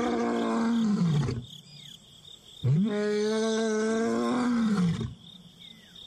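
Male lion roaring: the end of one long call that falls in pitch and dies away about a second in, then a second long call that rises, holds steady for about two seconds and falls off. It is a lone lion's far-carrying roar, calling to locate his missing companion.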